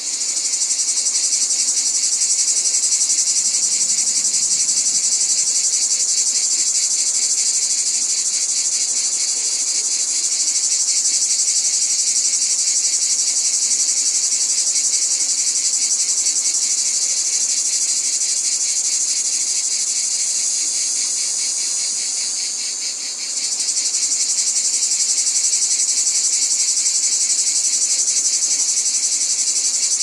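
Dense, steady, high-pitched chorus of insects with a fast pulsing shimmer, dipping briefly about three quarters of the way through before resuming.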